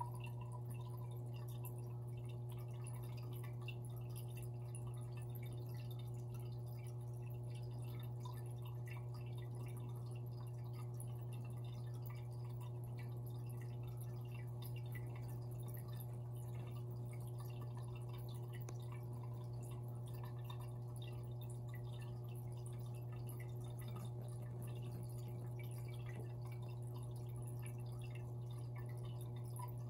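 Fish tank equipment running: a steady low hum with a few faint steady tones over it, and faint dripping and trickling of water.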